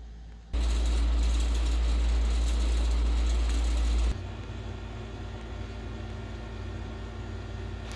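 Ceiling fan running: a loud steady whoosh with a low rumble that starts abruptly just after the beginning and cuts down abruptly about four seconds in to a quieter steady hum with a faint tone.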